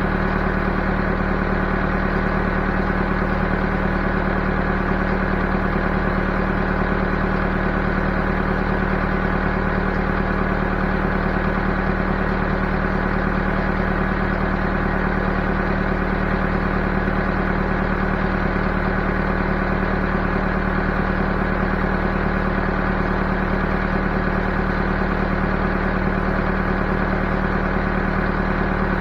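Backhoe engine running at a steady speed, with an even, unchanging hum.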